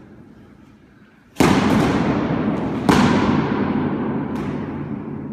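Wooden sparring sticks striking during a bout: two loud sharp cracks about a second and a half apart, with fainter knocks between and after. Each crack rings on in a long echo off the bare walls of the court.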